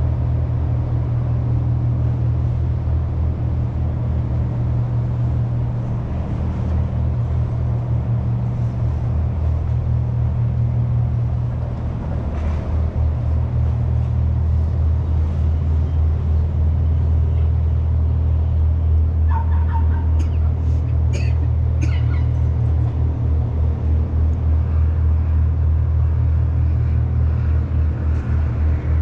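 Steady low rumble, with a few short high chirps about twenty seconds in.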